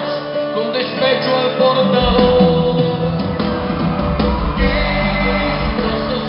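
Live pop-rock band playing in a large arena, recorded from the audience, with singing. The bass comes in heavily about two seconds in.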